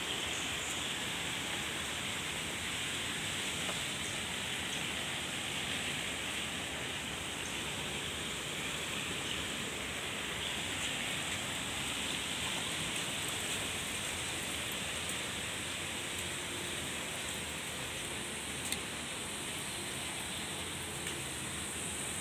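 Steady, even rushing hiss of outdoor ambience with a constant high-pitched band above it, and a single small tap near the end.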